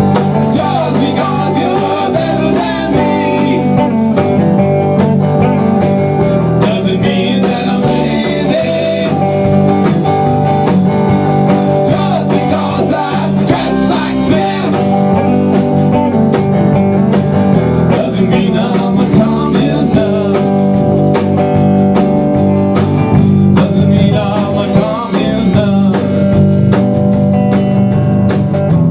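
A rock band playing live: electric guitar, electric bass and drum kit.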